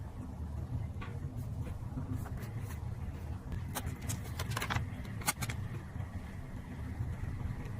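Paper and collage materials being handled: scattered light crinkles and sharp taps, busiest about four to five and a half seconds in, over a steady low hum.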